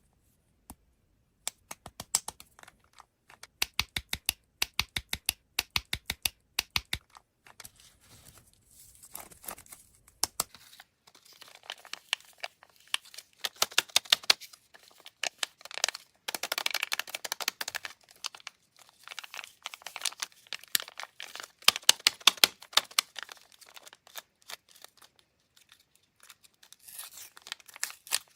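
Candy wrappers being handled: quick sharp clicks or taps in short runs for the first seven seconds or so, then plastic wrappers being torn open and crinkled.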